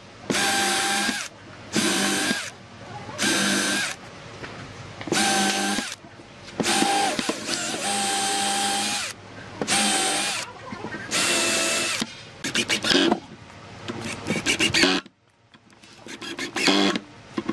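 Ozito cordless drill whining in about nine short bursts, boring pilot holes into pine boards. Near the end comes a choppier rattling in two short bursts as a cordless impact driver drives the screws.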